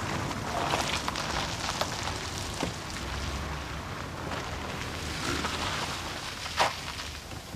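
Cars driving up and pulling in, engines running under a rushing tyre noise, with scattered clicks and one sharp knock near the end.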